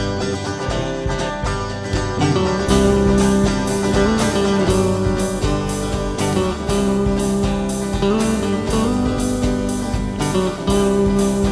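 Instrumental break in a song: guitar-led backing with a steady beat, getting fuller and louder about two and a half seconds in.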